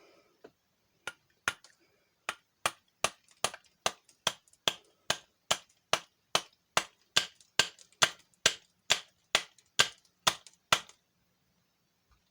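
A rapid, even series of sharp taps, about two and a half a second, some two dozen in all, stopping about eleven seconds in.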